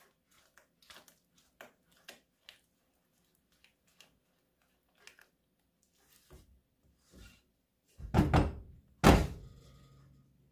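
Soft clicks and scrapes of utensils at the cooking pot, then two heavy thunks about eight and nine seconds in, the second ringing briefly.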